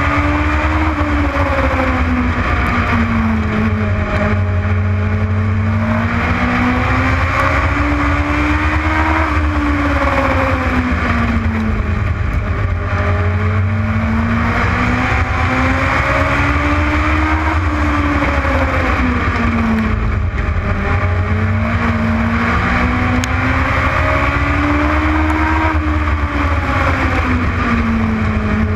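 Legends race car engine at racing speed, its pitch climbing and dropping in a repeating cycle about every four seconds as it accelerates and lifts around a short oval.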